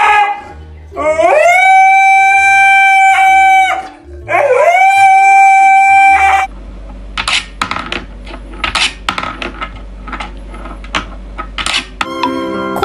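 A husky howling twice, two long drawn-out howls that each rise in pitch at the start, the first about a second in and the second about four seconds in. After them come quieter short sharp sounds over a low steady hum.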